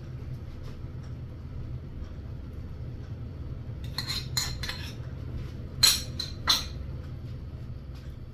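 Glass lid with a metal rim being set onto a stainless steel pot: a few light clicks about four seconds in, then two sharp clinks about a second apart, the pot being covered to cook the biryani on dum. A steady low hum runs underneath.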